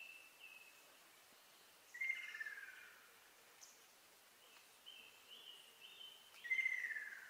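Ruddy kingfisher calling: a descending rolling trill, the "kyororo" call, given twice about four seconds apart. Each trill follows a short series of higher stepped notes, over a faint background hiss.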